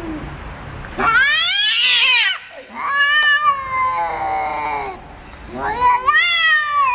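Two cats yowling at each other in an aggressive standoff: three long caterwauls, each rising and then falling in pitch, the first starting about a second in.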